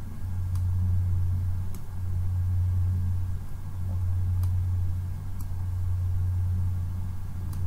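A steady low hum, with a few faint, short clicks of a computer mouse.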